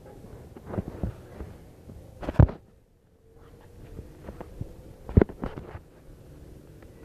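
Scattered knocks and taps, the two loudest about two and a half and five seconds in.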